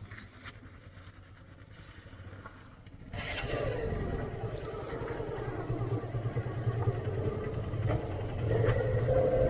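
Motorcycle engine: faint for the first few seconds, then coming in suddenly about three seconds in and running, growing louder toward the end.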